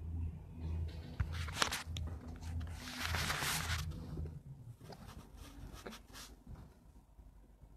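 Handling noise on a phone's microphone as the phone is tipped and moved: a few knocks, then a rustling rub about three seconds in, over a low hum that pulses about twice a second.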